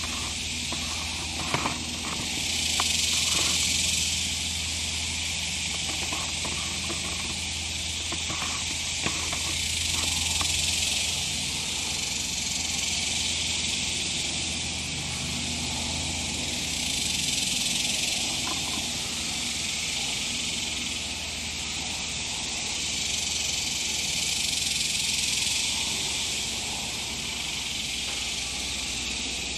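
A dense, high insect chorus buzzing steadily in the trees, swelling and fading every few seconds, over a low steady hum, with a couple of faint clicks near the start.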